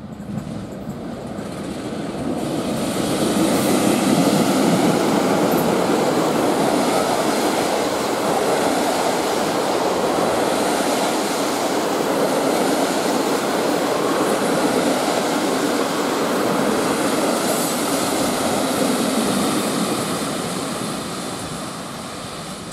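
SM42 diesel locomotive hauling a train of passenger coaches past at close range: its engine builds as it approaches, then the coaches' wheels roll steadily over the track, and the noise fades near the end as the train moves away.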